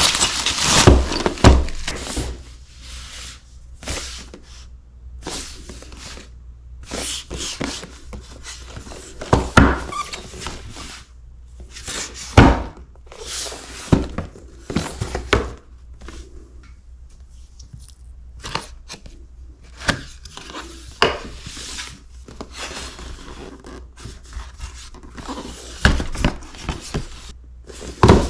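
A cardboard box being handled on a wooden table: irregular knocks and thunks as it is set down and turned, with crinkling of bubble wrap at the start and the rustle of cardboard flaps being opened near the end.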